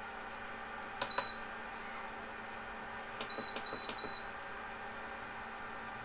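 Infrared cooktop's control panel beeping: one short high beep with a click about a second in, then three quick beeps with clicks a little past three seconds. Under them runs the steady hum of the cooktop's cooling fan.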